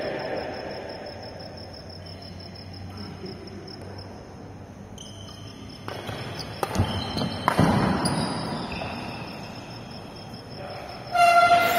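Badminton racket strikes on a shuttlecock during a rally: a couple of sharp hits in the second half, the second the loudest, over a faint, steady high-pitched pulsing chirp.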